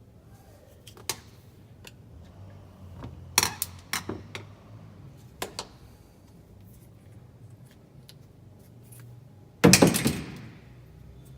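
Light clicks and knocks of tools and parts being handled during a repair of a Makita 5704R circular saw, with one much louder clattering knock near the end.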